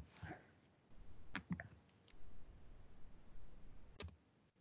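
A few faint, scattered computer keyboard keystrokes as text is typed and corrected.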